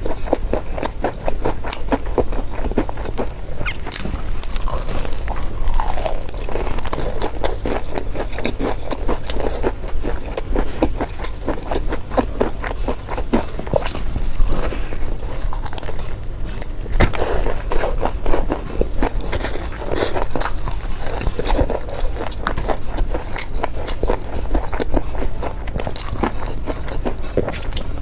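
Crunching and chewing of crispy fried chicken: dense, crackly bites one after another.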